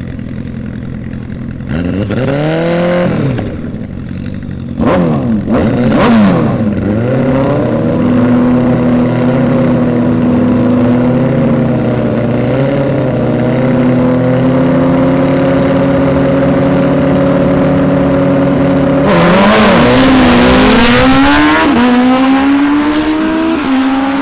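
Two Suzuki Hayabusa inline-four engines blipping the throttle, then held steady at high revs on the start line. They then launch at full throttle, louder, with the pitch climbing and dropping at each upshift as they pull away and fade.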